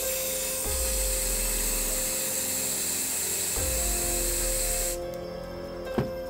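Aerosol can of red spray paint hissing in one continuous spray for about five seconds, then stopping, followed by a single knock as the can is set down on the table.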